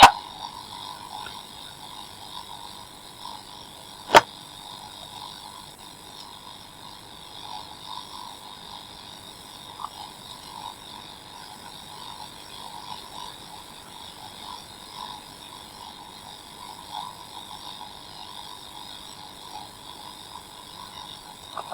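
Reolink security camera audio with a steady crackling buzz in two narrow pitch bands, the sound fault being shown. A sharp click comes about four seconds in.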